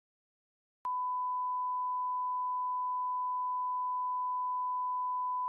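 A 1 kHz reference test tone, the steady pure beep that goes with SMPTE colour bars. It comes in abruptly with a small click about a second in and holds at one pitch and level.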